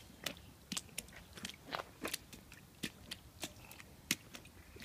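A toddler's footsteps on wet, gritty pavement: faint, irregular crunches, about three a second.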